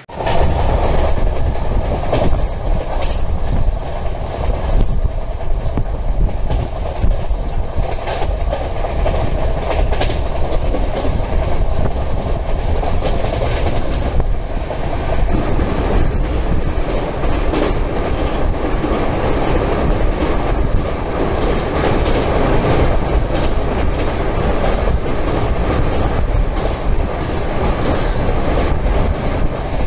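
Indian Railways sleeper coach running at speed, heard from inside: a loud steady rush of wheel and track noise with the clatter of wheels over rail joints.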